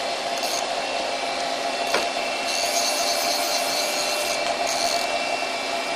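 CNC lathe idling with its spindle stopped: a steady machine hum with constant whining tones. A rasping hiss rises between about two and a half and five seconds in, and there is a single click about two seconds in.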